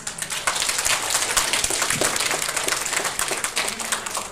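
Audience applauding, many hands clapping at once, starting suddenly and dying down near the end.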